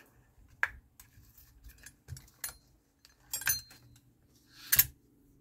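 Metal hand tools clinking and knocking: a string of short, sharp metallic clinks at uneven intervals, the loudest near the end.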